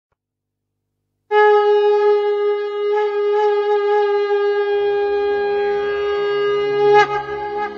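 A conch shell blown in one long, steady note. It starts after about a second of silence and breaks off near the end, and a low musical drone comes in under it about halfway through.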